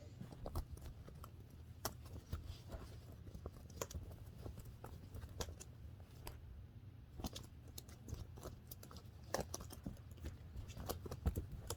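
Irregular small clicks and rustles of objects being handled close to the microphone, over a low steady hum.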